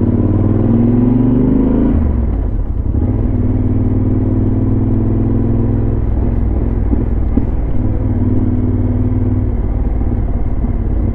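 Yamaha XT1200Z Super Ténéré's parallel-twin engine through a LeoVince SBK aftermarket exhaust while riding. It revs up over the first two seconds, drops in pitch at a gear change, then pulls at a steady pitch with brief easings of the throttle later on.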